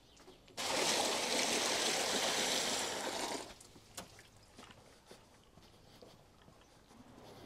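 A bucket of water poured into a shallow plastic tub, splashing for about three seconds from half a second in, then a few faint knocks.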